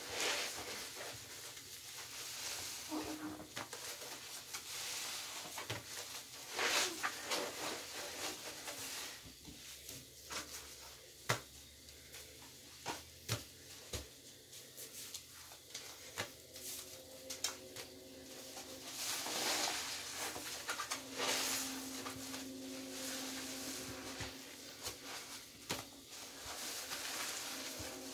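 Soapy sponges being squeezed and kneaded in a bowl of thick cleaner foam. The lather squelches and crackles in swells as the hands press, with scattered small sharp pops.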